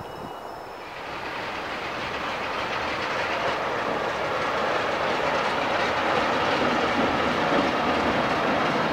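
BR Class 45 'Peak' diesel locomotive, with its Sulzer twin-bank 12-cylinder engine, running past with its train, growing steadily louder from about a second in as it comes nearer.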